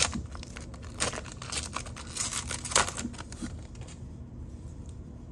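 Foil wrapper of a 2021 Prestige football card pack crinkling and tearing as it is ripped open by hand, in sharp crackling flurries over the first three seconds that then die down to faint rustles.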